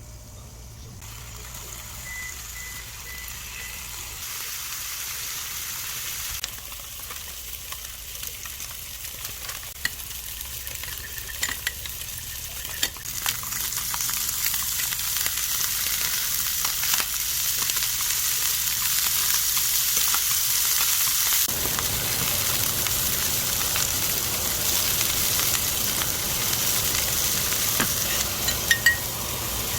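Food sizzling in a hot frying pan, the sizzle growing louder over the stretch, with occasional sharp clicks of a utensil against the pan.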